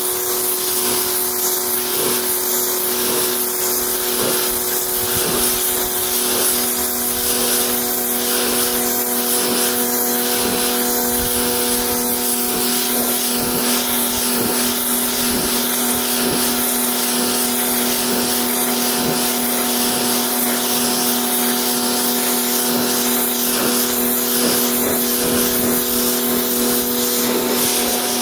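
Battery-powered pressure washer running steadily, its motor and pump humming under the hiss of a water jet blasting into fabric upholstery.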